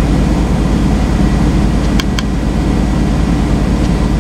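Semi-truck diesel engine idling steadily, heard from inside the cab, with two short electronic beeps about two seconds in as the in-cab Qualcomm touchscreen is tapped to scroll.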